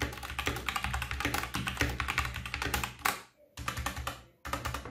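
Typing on a SteelSeries Apex 7 mechanical keyboard with red linear switches: a quick, dense run of key clacks, broken by two short pauses about three and four and a half seconds in.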